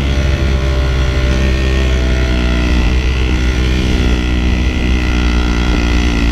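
Classic Vespa scooter's two-stroke single-cylinder engine running steadily while riding, heard close from the saddle.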